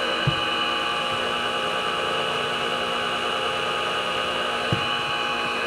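Milling machine spindle running steadily with a drill bit in a deep hole in a radial engine cylinder, a constant whirring hum. Two brief knocks come about a third of a second in and near the end.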